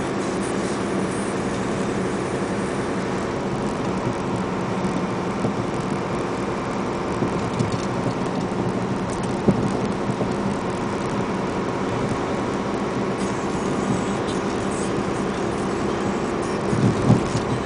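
Inside a vehicle's cabin while driving on a wet road: a steady engine hum over tyre and road noise, with a few short ticks and knocks, the sharpest about nine and a half seconds in.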